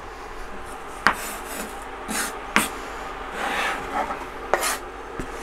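Kitchen knife blade scraping across a wooden cutting board, gathering chopped garlic, in a few short scrapes with sharp clicks of the blade on the board in between.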